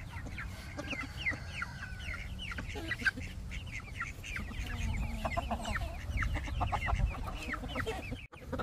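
Young chickens peeping with many short, falling cheeps, joined about halfway through by some lower clucking calls. The sound drops out briefly near the end.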